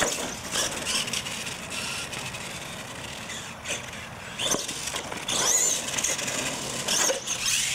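Radio-controlled monster truck running on concrete, its motor whining up and down in pitch as it speeds up and slows down, with a few sharp knocks as it hits ramps and lands.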